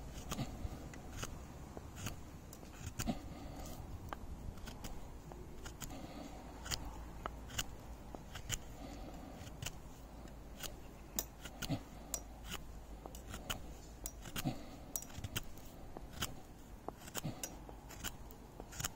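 Knife blade whittling a wooden stake to a point, shaving off slivers in short, sharp cutting strokes, a couple a second and unevenly spaced.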